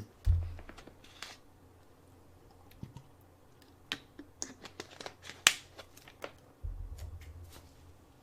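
Scattered small clicks and taps, with a low thud just after the start and a second low rumbling thud about two-thirds of the way in.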